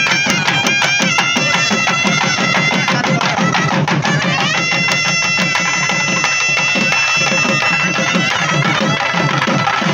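Temple procession music from a nadaswaram and thavil drums: a shrill reed pipe plays a bending melody, then holds one long high note from about halfway through, over fast, busy drumming.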